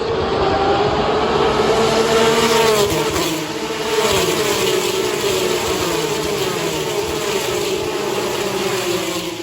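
Formula One race cars going by at high revs, one after another. It is a high-pitched engine note that swells twice and then slowly drops in pitch as the cars pull away.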